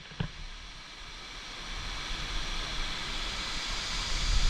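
Steady rush of a waterfall, growing gradually louder, with a low rumble underneath. Two short clicks at the very start.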